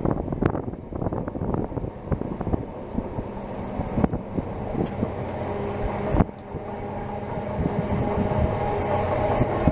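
Passenger train running at speed, heard from on board: a steady rumble of wheels on rail with occasional sharp knocks over rail joints, and from about halfway a steady hum of several tones that grows slowly louder.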